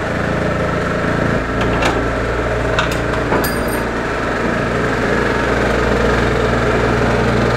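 Metal tool clicks and clinks, one with a short bright ring, as a car's intercooler is unbolted and lifted out, over a steady low machine hum.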